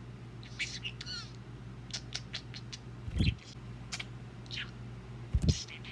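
Pet budgerigar chirping and chattering in short high warbles, with a quick run of clicks about two seconds in. Two low thumps, around the middle and near the end, are the loudest sounds.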